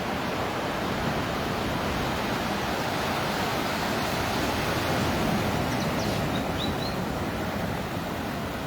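Ocean surf washing onto a beach: a steady rushing wash of waves that swells a little about five seconds in.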